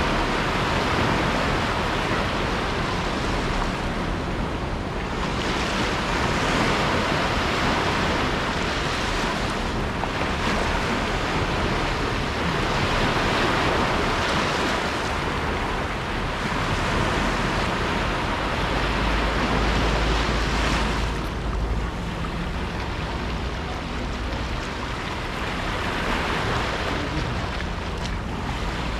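Small sea waves washing onto a sandy, rocky shore, the wash swelling and easing every few seconds. Low wind rumble on the microphone for a couple of seconds about two-thirds of the way through.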